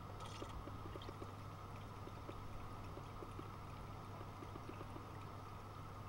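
Miele front-loading washing machine filling for the first rinse: water switches on abruptly and rushes into the drum as a steady hiss, over a low hum, with faint scattered ticks.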